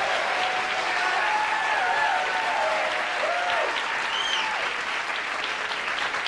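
Studio audience applauding, with a few scattered cheering voices over the clapping.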